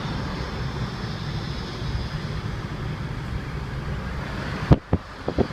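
Steady rumble and hiss of road noise. It cuts off abruptly near the end and is followed by a few sharp knocks.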